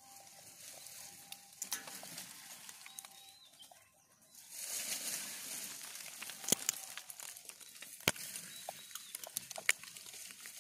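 Dry rustling and crinkling with many sharp clicks as a gray langur feeds among dry leaves and scattered grain, louder for a couple of seconds in the middle.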